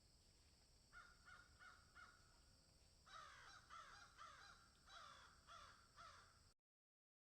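A bird calling over and over, faint. It gives a run of short calls, each falling in pitch, that come closer together from about three seconds in. The sound then cuts off abruptly.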